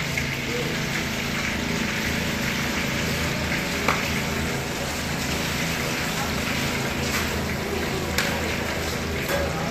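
Breaded chicken cordon bleu rolls deep-frying in hot oil in a wok: a steady sizzle and bubbling, with a steady low hum underneath and a few light clicks.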